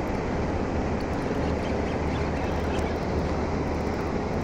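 Small boat's outboard motor running steadily: a low hum under a constant rushing noise.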